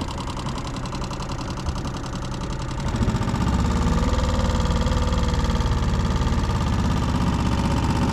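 Small four-stroke outboard motor, a Tohatsu-built Mercury F3.5, running at low throttle; about three seconds in it gets louder, with a stronger low hum.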